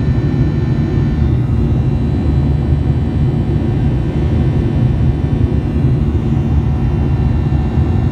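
Boeing 737 jet engines heard from inside the cabin while climbing after takeoff: a loud, steady rumble with faint, steady high tones above it.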